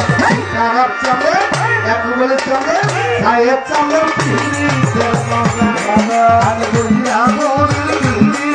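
Live Baul folk music: a hand drum playing steady strokes with deep bass notes that slide down in pitch, over a harmonium.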